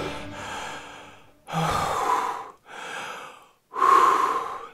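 A person breathing heavily: three long, noisy breaths or sighs, each under a second, following a sustained note that fades out in the first second.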